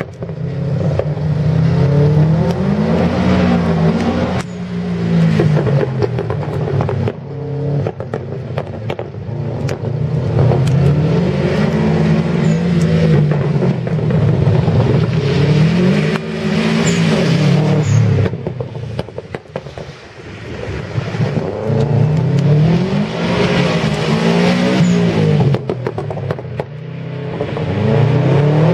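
Subaru Impreza WRX's turbocharged flat-four boxer engine revving hard and backing off again and again as the car accelerates and brakes through a tight rally sprint course, the pitch climbing and dropping every few seconds.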